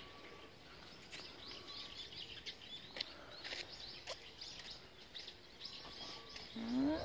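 Small birds chirping faintly, short high chirps scattered all through, with a few light clicks. Near the end comes a short rising call, louder than the chirps.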